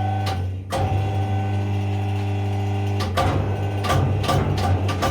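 Electric motor and hydraulic pump of a hydraulic forging press running, a steady hum. It dips briefly about half a second in, and a few short clicks and knocks come over it in the second half.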